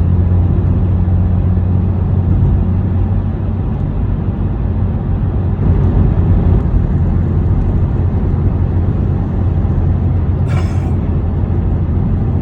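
Steady low rumble of a car driving through a road tunnel, engine and tyre noise. A short hiss comes about ten and a half seconds in.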